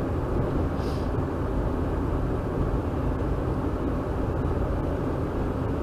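Steady road and engine noise inside a vehicle's cabin while it cruises at highway speed.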